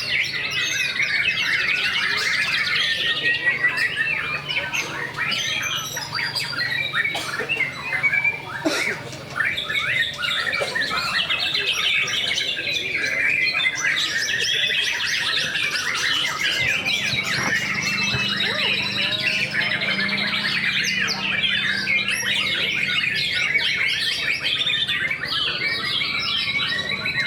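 Many caged white-rumped shamas (murai batu) singing at once in a contest, a dense unbroken mass of rapid overlapping chirps, whistles and rattles.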